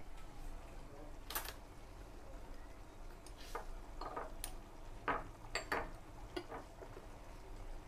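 Light clinks and knocks of kitchenware, about seven scattered over several seconds, the loudest a cluster near two-thirds of the way through, over a low steady hum.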